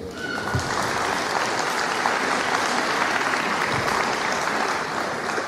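Audience applauding: steady clapping that starts just after the start and dies away near the end.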